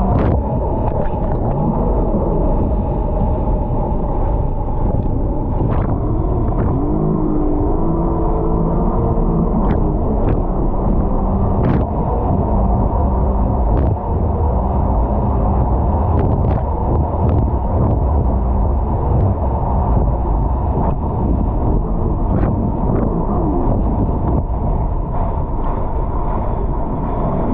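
A 300-horsepower jet ski's engine running under way, with a heavy low rumble and its pitch shifting up and down as the throttle changes.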